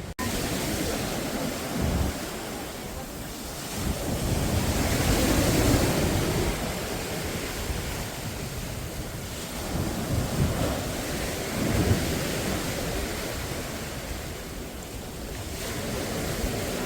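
Sea waves washing onto the shore, swelling louder twice as they surge in, with wind rumbling on the microphone.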